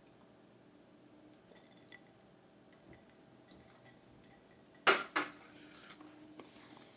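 A drinking glass set down on a hard surface: a sharp clink about five seconds in, a second knock just after, and a faint ring fading away.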